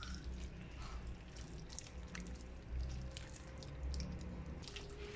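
Small wet clicks and squelches from hands and a knife working raw chicken meat off a wing bone, scattered irregularly over a low steady hum.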